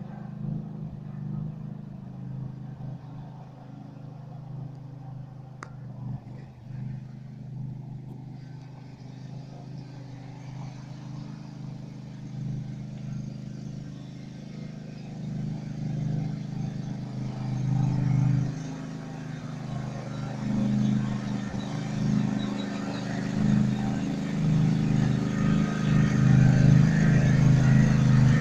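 Husqvarna GT48DXLS garden tractor's engine running at a steady speed while the tractor is driven, growing much louder through the second half as it comes close.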